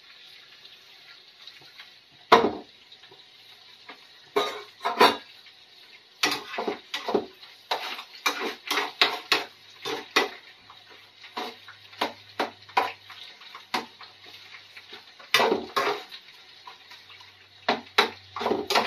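A metal utensil knocking and scraping against a frying pan of eggs in oil in irregular clinks, over a faint steady frying sizzle.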